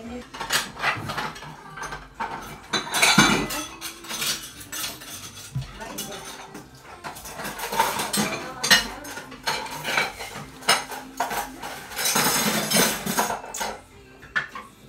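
Irregular light clicks, taps and clatter of small hard objects being handled and set down, coming every second or so.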